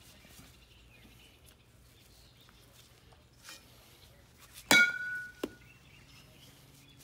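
A youth baseball bat hits a ball off a batting tee once, about five seconds in: a single sharp ping with a brief metallic ring.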